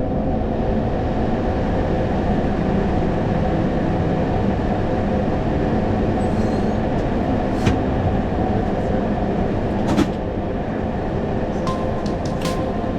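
Steady rumble and hum inside an Airbus A220 cockpit on the ground after landing, with sharp clicks about 7.5 and 10 seconds in and a quick run of clicks with a brief high tone near the end.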